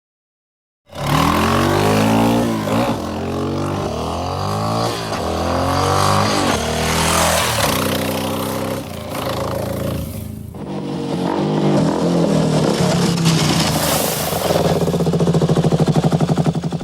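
Motorcycle engine accelerating hard through the gears, its pitch climbing and dropping back at each shift. It eases briefly about ten seconds in, revs up again, and ends in a steady, even pulsing run before cutting off suddenly.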